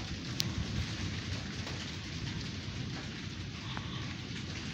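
Rain falling steadily, with a low rumble underneath and a couple of sharp drip clicks.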